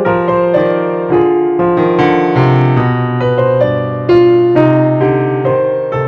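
Background music: a gentle keyboard melody of notes struck about every half second over held low notes.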